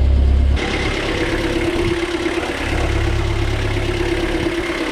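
Sailboat's inboard diesel engine idling just after starting on a newly replaced starter wire. About half a second in, the deep low rumble gives way abruptly to a lighter steady hum with a hiss over it.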